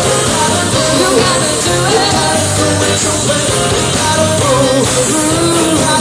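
Live band playing a pop-rock song on electric guitar, bass guitar and drums, with a voice singing over it.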